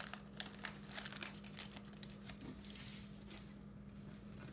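Foil Pokémon booster pack wrapper being torn open and crinkled by hand: a run of sharp crackles through the first couple of seconds that thins out to faint rustling.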